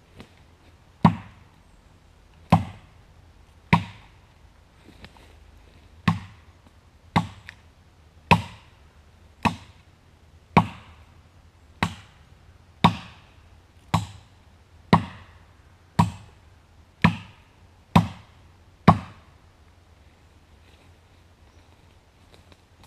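Hickory sapling being chopped down with a hand-held blade: about sixteen sharp chops, roughly one a second, stopping a few seconds before the end.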